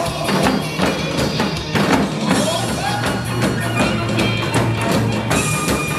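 Music with janggu (Korean hourglass drum) strokes beating a steady rhythm over a backing track with sustained tones.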